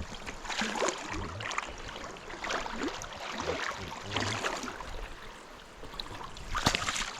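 River water running and sloshing, with irregular splashes and a few low thumps.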